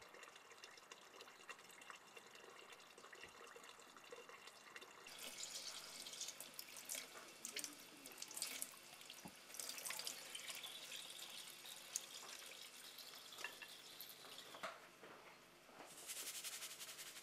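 Kitchen tap running into a sink, water splashing over hands and raw meat being rinsed under it, with small clinks and drips. It starts about five seconds in, eases off, and comes back in a short burst near the end.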